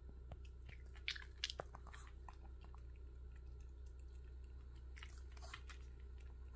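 A Pomeranian's teeth chattering as its jaw trembles in excitement while it waits for a treat. There is a quick run of small clicks about a second in, and fainter ones around five seconds.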